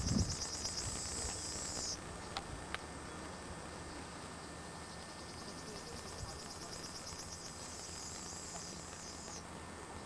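An insect's high, rapidly pulsing buzz, in two long spells with a gap of a few seconds between them, over a low wind rumble on the microphone.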